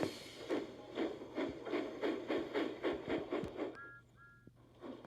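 Steam train sound effect: rhythmic chuffing at about three or four puffs a second, stopping about three and a half seconds in, followed by two short two-note whistle toots.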